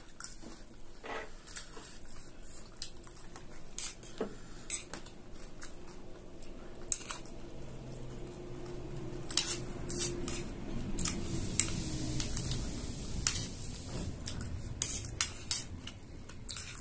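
Small metal spoons clicking and scraping irregularly against ceramic plates as they scoop up chatpate, with a low rumble swelling in the middle.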